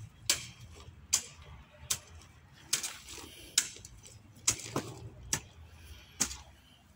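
A garden hoe striking stony soil in a steady working rhythm: about eight sharp chopping clicks, a little under a second apart, as the blade hits earth full of small pebbles.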